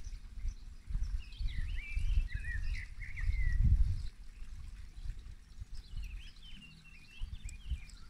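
Wind gusting on the microphone in uneven low rumbles, with a small bird singing two bursts of quick warbled chirps, one about a second in and another past halfway.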